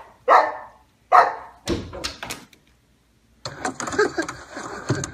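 Boxer dog barking: two loud barks, then a few quicker, softer ones, ending about two and a half seconds in. After a short gap, a busy jumble of noise and knocks starts about three and a half seconds in.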